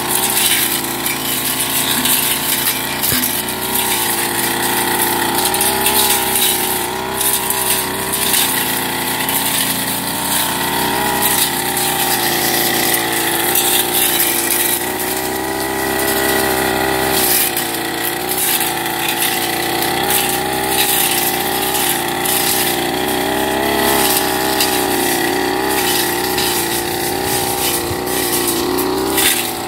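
Firman 30cc two-stroke backpack brush cutter running at high revs while cutting weeds and brush. Its pitch rises and falls continually as the throttle and the load on the blade change.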